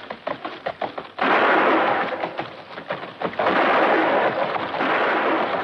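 Loud action noise from the soundtrack of a film shown in a cinema: a quick run of sharp knocks, then about a second in a sudden loud, rough rushing noise that dips for a moment and comes back.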